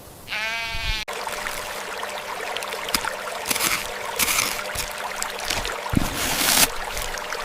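A sheep bleats once, a short wavering call, followed by a steady hiss with scattered clicks and rustles.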